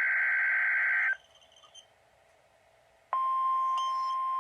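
NOAA Weather Radio Emergency Alert System tones. The tail of a SAME digital header burst, a harsh buzzing data screech, cuts off about a second in. After about two seconds of near silence, the steady single-pitch weather radio warning alarm tone starts, marking the alert test.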